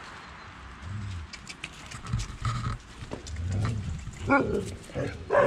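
Sled-dog huskies whining in short, wavering high calls, one about four seconds in and another near the end. Before that come soft thumps and scattered clicks from the dogs moving close by.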